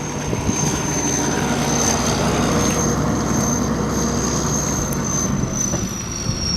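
T-150K tractor's diesel engine running hard in a rut, heard steadily with a thin high whine above it that sinks slightly near the end.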